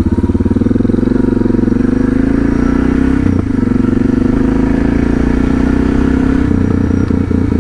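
Suzuki DR650's single-cylinder four-stroke engine running steadily under way, running sweet as a nut. The engine note dips briefly about three seconds in.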